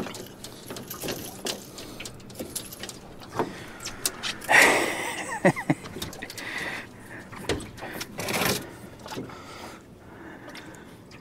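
Scattered knocks, clicks and rattles of fishing rods and gear being handled in an aluminum jon boat, with two louder rustling scrapes about four and a half and eight and a half seconds in.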